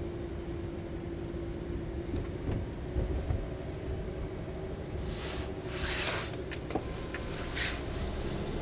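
Car rolling at low speed, heard from inside the cabin: a steady low engine and road rumble. A couple of dull knocks come around three seconds in, and bursts of hiss around five to six and seven and a half seconds in.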